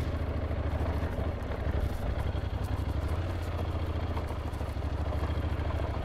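Honda NC750X DCT motorcycle's parallel-twin engine running steadily at low revs with a fast, even low throb, as the bike rolls along a dirt forest track.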